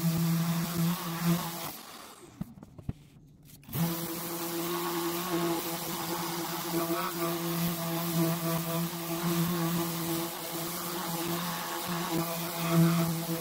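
Random orbital sander running at a steady pitch as it is worked across a plexiglass sheet. About two seconds in it cuts out for roughly two seconds, then comes back abruptly.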